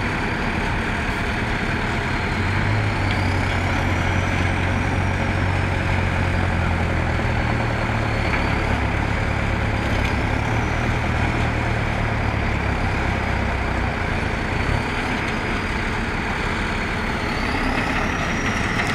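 Heavy diesel tractor engines running under load, a steady low drone that grows stronger about two seconds in and eases off around fourteen seconds.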